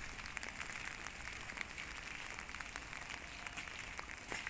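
Steady rain falling on wet pavement: an even hiss with many scattered small ticks of drops.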